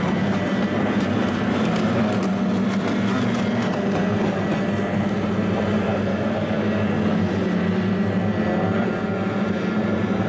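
Kyotei racing boats' two-stroke outboard engines running at racing speed as the boats round the turn mark, a steady buzzing drone.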